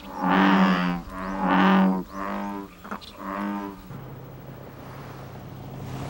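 American bullfrog calling: four cow-like notes in a row, each just under a second long. About four seconds in the calls stop and a steady low hum takes over.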